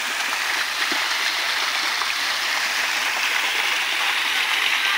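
Ornamental pool fountain's vertical water jet spraying up and splashing back into the pool: a steady rushing hiss of falling water.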